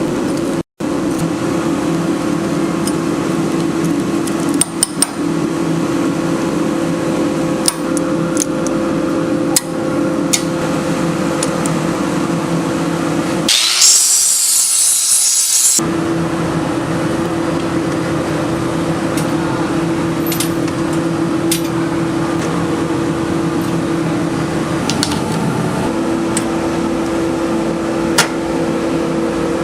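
A workshop power tool's electric motor running with a steady hum, with scattered light clicks. About fourteen seconds in it gives way for two seconds to a loud, high hiss.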